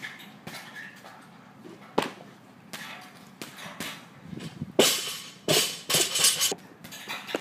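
A loaded barbell snatched and then dropped from overhead onto a rubber floor: a sharp knock about two seconds in during the pull, then a loud bang a little before five seconds, followed by several rapid bounces with the plates clattering on the bar.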